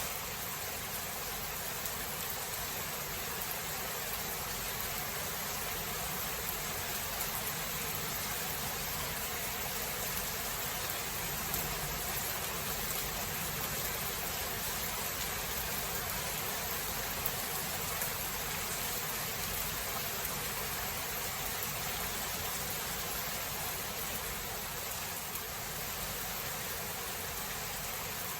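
Steady rain falling during a thunderstorm, an even hiss at a constant level with no thunderclap standing out.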